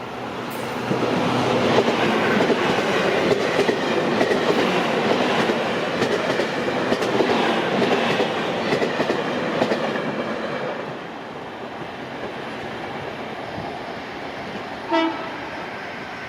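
A JR Kyushu electric multiple-unit train passes close by over a level crossing: a loud rush and rumble with rapid clickety-clack of wheels over the rail joints, dying down to a quieter rumble after about ten seconds. Near the end comes one short, sharp pitched toot.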